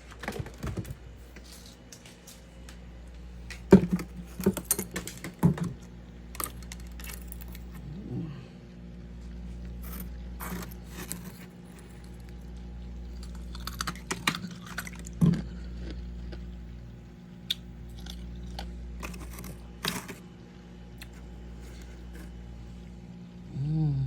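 Freezer frost crunching in irregular sharp clicks and crackles, heaviest about four to six seconds in and again around fifteen seconds, over a steady low hum.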